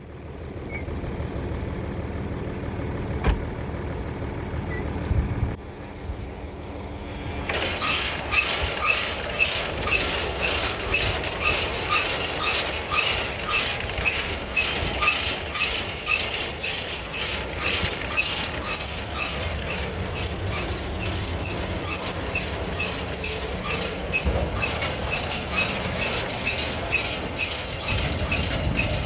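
A tractor engine runs steadily. About seven seconds in, a New Holland baler joins it, running with a rhythmic mechanical clatter of about two beats a second.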